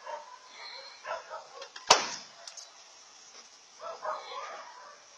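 A single loud bang about two seconds in, a blow struck against the body of a small car, with a dog barking now and then around it.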